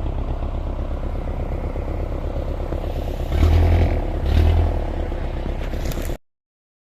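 Off-road vehicle engine running with a steady low throb, surging louder twice a few seconds in, then cutting off suddenly.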